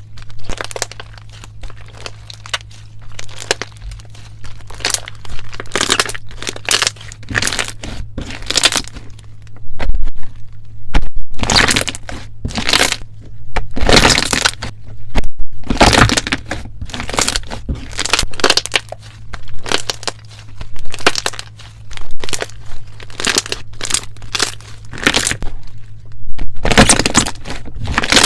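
Slime being squeezed and pressed by hand, giving a long series of short crackling, crunching sounds, some louder than others.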